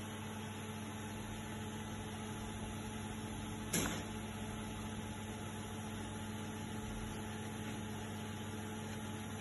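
A steady low electrical hum from workbench equipment, with one sharp click a little under four seconds in.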